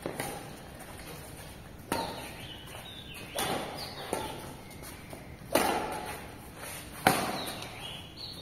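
Badminton rally: a racket strikes the shuttlecock with a sharp smack about six times, roughly every one and a half seconds, each hit leaving a short echo.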